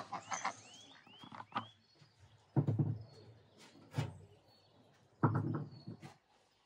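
Clay-caked stones being lifted and shifted off the metal sheet covering a clay oven: two dull thuds a few seconds apart with a sharp knock between them. Birds chirp with a few short rising calls in the first two seconds.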